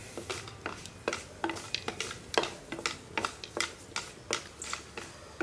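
A perforated wooden spatula stirring and scraping in a clay pot, with irregular sharp clicks and crackles as asafoetida pieces and fenugreek seeds fry in hot oil.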